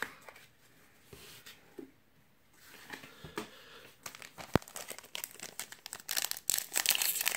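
Foil wrapper of a Pokémon booster pack crinkling as it is picked up and handled, growing busier over the last couple of seconds as it begins to be torn open. One sharp click about four and a half seconds in.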